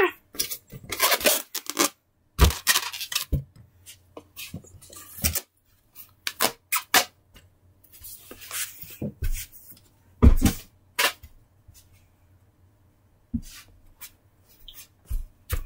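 Scattered rustles, scrapes and light knocks of hands handling and moving stuffed toys, coming in irregular bursts with short quiet gaps.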